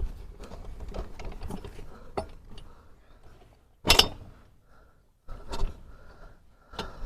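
Irregular metal clanks and knocks as a motorcycle's rear wheel, spacer and axle are worked into line, with one sharp ringing clang about four seconds in.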